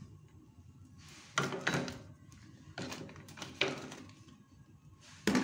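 Several dull knocks and clatters, about five, spaced unevenly through the seconds, as kitchenware is handled at the stove beside a frying pan. The loudest comes near the end.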